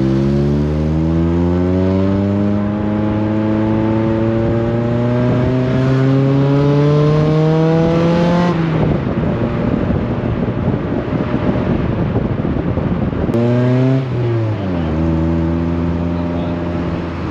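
Car engine heard from the open window, pulling steadily with its note rising for about eight seconds. It then lets off, leaving road and wind noise. Near the end the engine note comes back and drops to a steady lower tone as the car slows.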